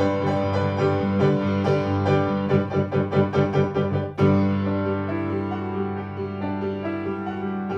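Keyboard music: quick repeated notes over a low sustained bass, then a sharp accent about four seconds in, after which longer held notes follow.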